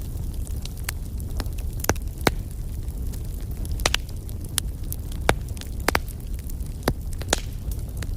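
Wood fire burning: a steady low rumble of flames with irregular sharp crackles and pops, about ten in eight seconds.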